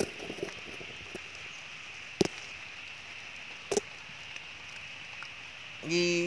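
Steady outdoor hiss with a few sharp clicks, then near the end a low, steady hum from a person's voice held for about a second.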